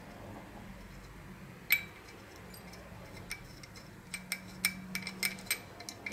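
Small metal parts of a bicycle bell clicking and clinking as the bell is reassembled by hand, each click leaving a brief high ring from the bell. One sharper click comes about two seconds in, then a quick run of clicks near the end.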